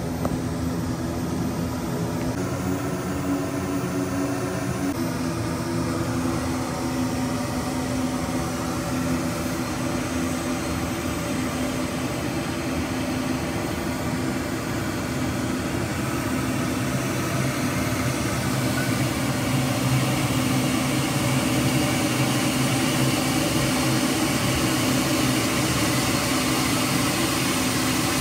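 Steady drone of a taxiing ATR 42 twin-turboprop's engines and propellers, heard from inside a car along with the car's own engine and cabin noise. It grows a little louder about two-thirds of the way through.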